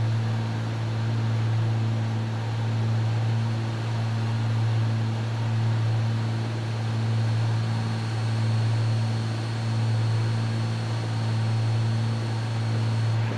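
Cessna 310's twin piston engines and propellers droning steadily, heard inside the cockpit. The level swells and fades about every two seconds, the beat of two propellers turning slightly out of sync.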